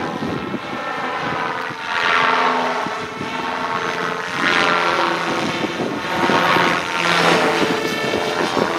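SAB Goblin Urukay electric radio-controlled helicopter in flight: steady motor whine and rotor noise that swell and fade about four times as it manoeuvres through the air.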